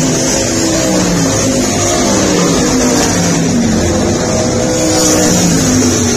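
Several race car engines running at once, their pitches rising and falling in overlapping sweeps.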